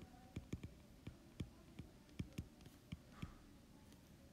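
Stylus tip tapping and clicking on an iPad's glass screen while writing by hand: soft, irregular taps about three a second.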